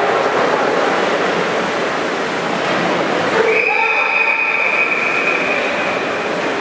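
Echoing din of a pool hall with splashing water and players' voices. About halfway through, a referee's whistle sounds one long, steady blast lasting nearly three seconds.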